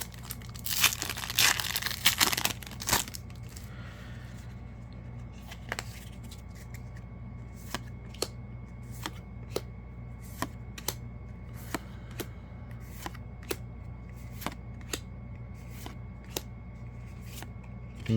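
A foil Yu-Gi-Oh! booster pack torn open with a crinkling rip about a second in, then the cards flicked through one at a time, a light snap about twice a second.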